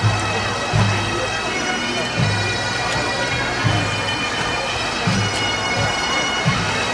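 Pipe band playing: Great Highland bagpipes sounding their steady drones and melody over a bass drum struck slowly, about once every second and a half.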